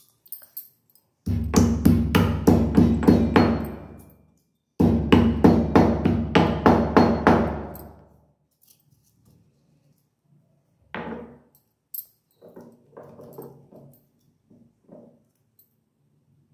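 Stone pestle pounding cardamom pods in a stone mortar: two runs of steady blows, about three a second, with a short pause between them, then after a gap a few lighter knocks.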